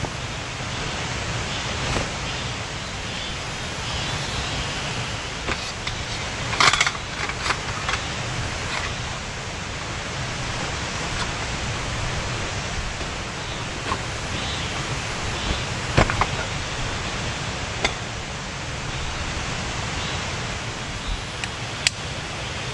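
Rustling and clinking of a Helinox cot's aluminium poles and nylon stuff sack being handled and fitted together, with a loud burst of handling about 7 s in and sharp clicks near 16 s and 22 s as pole fittings seat. Underneath runs a steady, even rushing noise.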